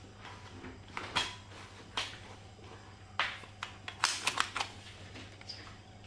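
Cat-grooming tools being used and handled: short, sharp brushing or scraping strokes about a second apart, then a quick run of light clicks about four seconds in, over a steady low room hum.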